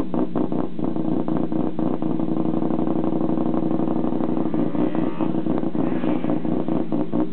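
Mazda RX-7 FC race car's naturally aspirated 13B peripheral-port rotary engine idling, with a lumpy, pulsing idle of about four beats a second that evens out for a few seconds in the middle.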